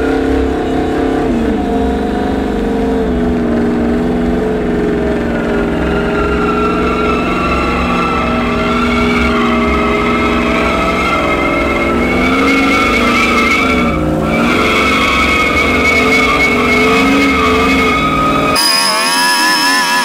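Ford F-150 pickup doing a burnout: the engine is held at high revs with the rear tyres spinning, and the revs dip briefly and pick back up about two-thirds of the way through. Near the end the sound cuts abruptly to a thinner, wavering engine note.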